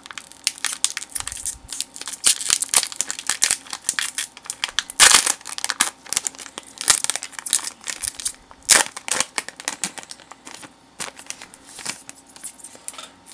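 A foil Pokémon booster-pack wrapper crinkling and tearing as hands rip it open, a dense run of crackles with louder rips about five and nine seconds in.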